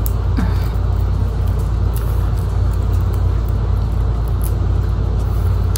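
Steady low rumble of background noise, even in level, with a few faint light clicks.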